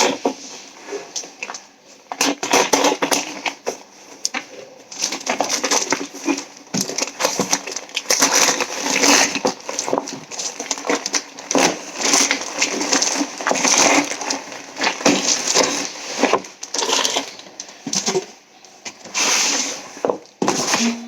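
Parcel packaging crinkling and rustling in uneven bursts as it is handled and opened.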